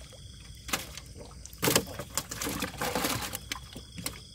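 Water splashing as a hand net is swept through the water and lifted with fish in it: a sudden splash about a second and a half in, then more than a second of sloshing.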